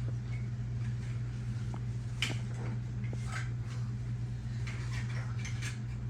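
A steady low hum runs throughout, with scattered soft rustles and light clicks from handling a ball python and its packaging.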